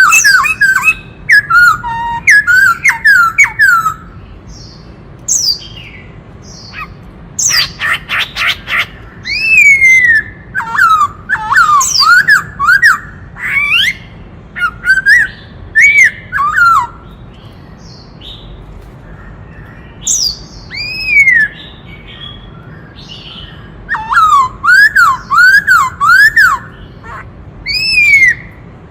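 Black-throated laughingthrush singing: loud whistled phrases of rising and falling notes, delivered in bursts with short pauses between them, with a brief harsh rattling run about eight seconds in.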